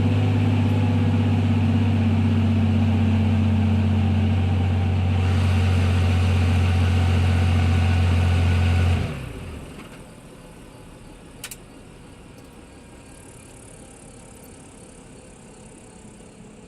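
Helicopter heard from inside the cabin: a loud, steady low drone that drops away quickly about nine seconds in as it winds down after landing. A faint steady hiss remains, with a single sharp click a couple of seconds later.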